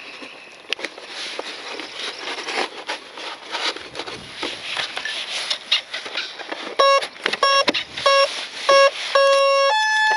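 Clicks and rustling as a flight battery is plugged into an RC model jet. Then its electronic speed controllers sound their start-up tones through the twin 50 mm ducted-fan motors: a string of short beeps, a longer beep, and a final longer tone at a higher pitch, signalling that the speed controllers have armed.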